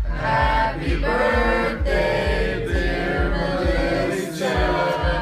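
Recorded music with a singing voice over a steady, regular bass beat.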